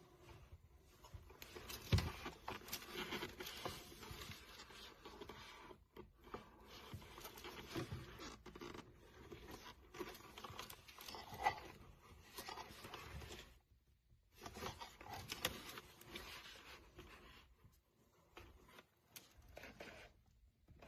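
Close-up handling noise: irregular rustling and scraping, with a sharp click about two seconds in and brief pauses twice.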